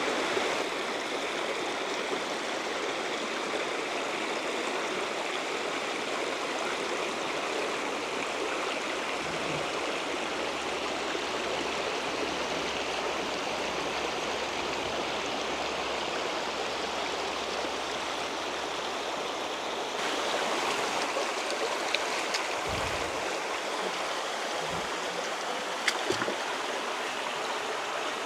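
Shallow Sulby River water running steadily over rocks, getting a little louder about two-thirds of the way through. A few brief knocks come near the end.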